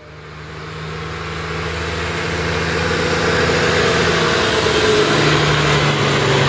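Vehicle engine running steadily, growing louder over the first few seconds, with a shift in its pitch about four and a half seconds in.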